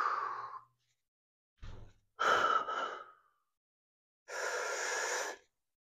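A man breathing hard under exertion: four loud, breathy exhales spaced one to two seconds apart.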